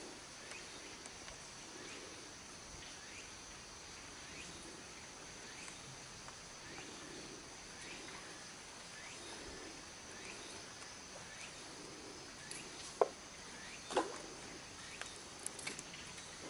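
Insects chirring steadily in the background over faint outdoor ambience. Near the end, two sharp clicks about a second apart, then a few lighter ticks.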